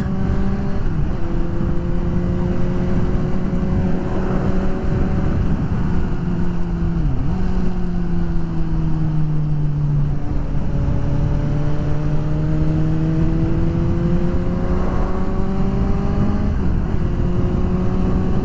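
Suzuki GSX-S750's inline-four engine and exhaust running under way at a steady cruise, over a constant rush of wind noise. The engine note dips sharply for a moment about seven seconds in, settles a little lower, then slowly climbs again.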